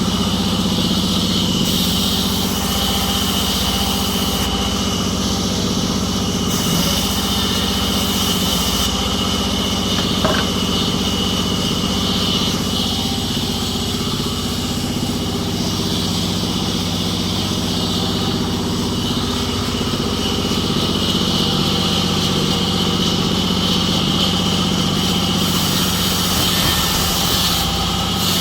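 An engine running steadily at constant speed, with a steady high whine above its drone and one small click about ten seconds in.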